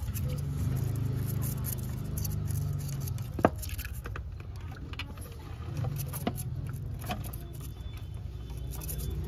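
Scattered clicks and light scraping of metal parts or tools being handled, over a low steady hum; one sharp click about three and a half seconds in is the loudest sound.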